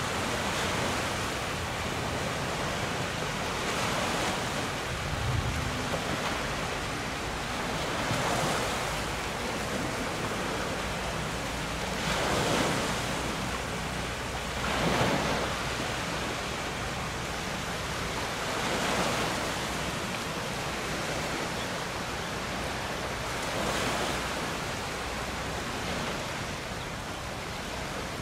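Wind and water rushing around a sailing boat under way: a steady hiss that swells about every four seconds as the hull meets the waves, with wind buffeting the microphone.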